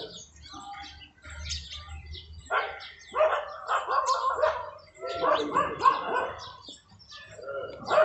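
A dog barking in bursts, with birds chirping.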